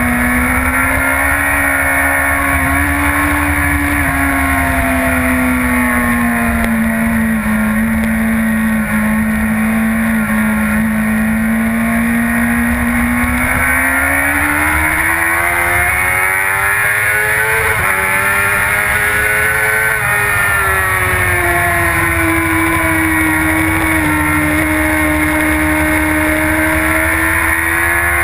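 2011 Yamaha R1's crossplane inline-four engine running hard at track speed, heard onboard under a steady rush of wind. The engine note holds, climbs about halfway through with a quick step down as it shifts up, climbs again, then eases off.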